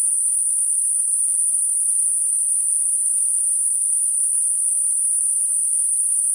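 Synthetic Gaussian narrow-band noise centred on 9.5 kHz: a steady, high-pitched hiss with nothing lower in pitch under it, holding the same level throughout. It is a tinnitus masking sound meant to cover high-pitched ringing or hissing.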